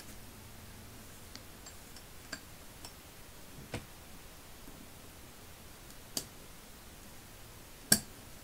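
Scattered small metallic clicks and taps as a screwdriver and pick work the spring-loaded ball and pawl into the steel head of a Snap-on SV-71A ratchet, about six in all, the sharpest one near the end.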